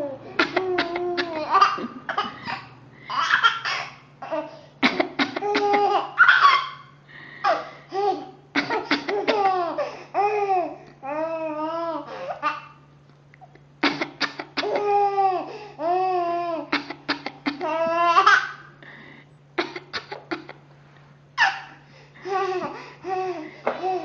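A baby laughing in repeated bouts of giggles and belly laughs, set off by a woman's fake coughs, which come as several short, sharp sounds between the bouts.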